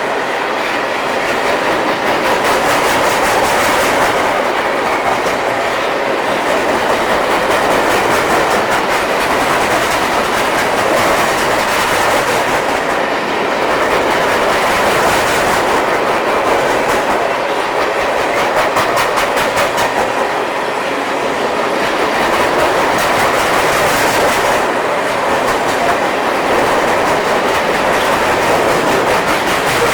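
Freight cars of a long mixed manifest train rolling past at speed: a steady loud rumble of steel wheels on rail, with rapid clickety-clack from the wheels crossing rail joints.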